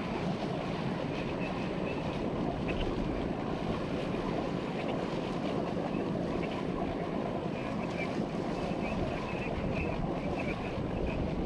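Steady wind buffeting the microphone over water rushing past a moving motor boat, an even rushing noise with no breaks.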